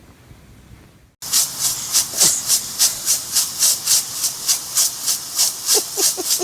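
Dog panting rapidly and hard, about three breaths a second, close to the microphone. A few short squeaks come near the end.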